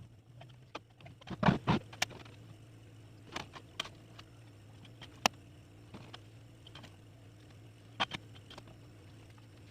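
Scattered knocks and clicks from hands working tools and parts on the amplifier box, over a steady low hum. The loudest knocks fall about one and a half to two seconds in, with a sharp click near the middle and a pair near the end.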